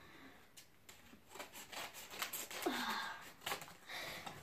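Faint rustling and crinkling of padded paper mailer envelopes being handled, with small clicks. One short falling pitched sound comes about two-thirds of the way through.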